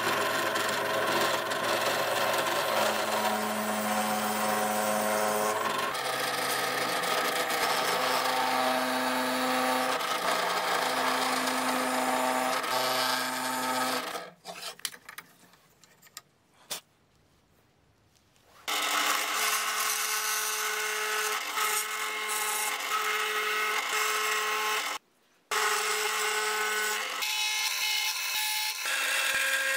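Bench drill press running, its bit boring holes into a wooden dowel, with a steady motor hum under the cutting noise. It stops for about four seconds roughly halfway through and again briefly near the end.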